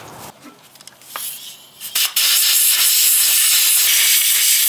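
Compressed-air blow gun blowing out the glow plug bores in an Isuzu 3LB1 diesel's cylinder head: a couple of short puffs, then a loud steady hiss from about two seconds in.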